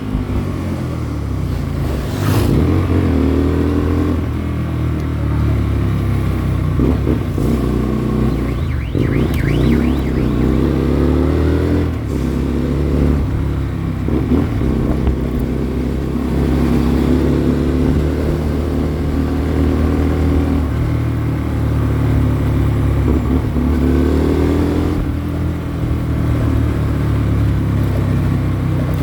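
Hyosung Comet GT 250's V-twin engine under way, its pitch rising and dropping back again and again as it accelerates and shifts through the gears, with wind noise on the microphone.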